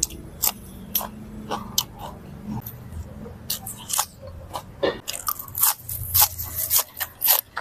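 Close-miked chewing and crunching of food as a person eats laab, a spicy Thai minced-meat salad: irregular crisp crunches and mouth clicks that come thicker in the second half.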